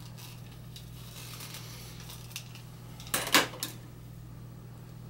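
A few sharp clicks and clinks from a lighter and candle being handled and set down on a lab bench, clustered a little past halfway, with one small tick before them. A steady low hum runs underneath.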